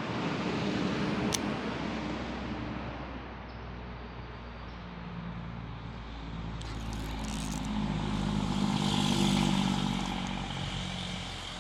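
A road vehicle passing by: a low engine hum with tyre noise that swells to its loudest about nine seconds in, then fades.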